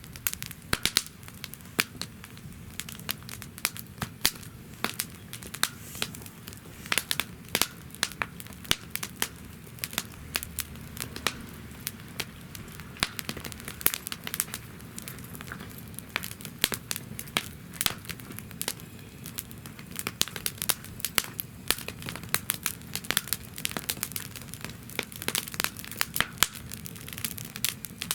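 Wood fire burning in a fire stand, crackling and popping with many sharp irregular snaps over a low steady rush of flame.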